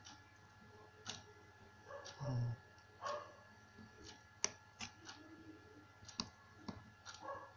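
Scattered faint clicks and taps at an uneven pace, with one dull thump about two seconds in, over a faint steady high-pitched electronic whine.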